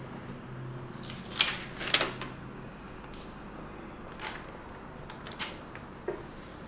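A few short, light clicks and rustles over a steady low hum. The two loudest come about a second and a half and two seconds in, with fainter ones later.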